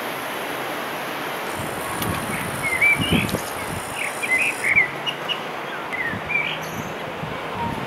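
Small birds chirping in short calls over a steady rushing noise. The chirps come in a scattered run from about two and a half seconds in to six and a half seconds in.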